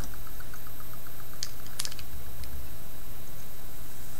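Small plastic clicks from a Transformers toy figure being handled and posed with its gun. There are a few sharp clicks, the clearest about a second and a half and two seconds in, with a faint quick ticking early in the stretch, over a steady low hum.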